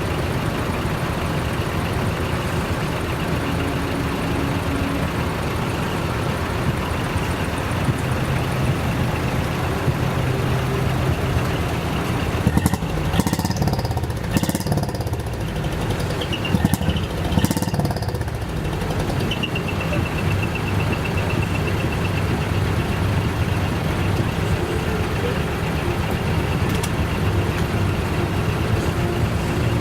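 Large trucks' diesel engines idling with a steady low hum. Between about 13 and 18 seconds in, several short sharp noises cut through.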